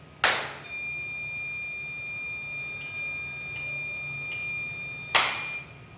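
A hand clap sets off the buzzer of an Arduino sound-sensor alarm, which sounds one steady high-pitched tone for about five seconds. A second clap comes near the end, and the tone cuts off just after it.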